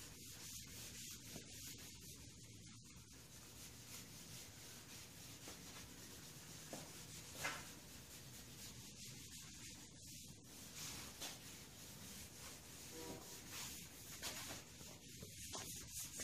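A cloth rag rubbing wood stain onto pine boards in faint, repeated wiping strokes, with one light tap about seven seconds in.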